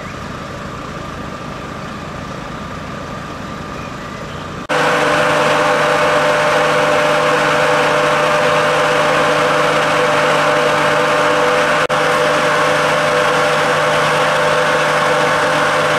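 Engines idling steadily, as from fire engines standing at the scene. About five seconds in the sound cuts to a louder, closer engine hum with a steady drone, briefly broken near the twelve-second mark.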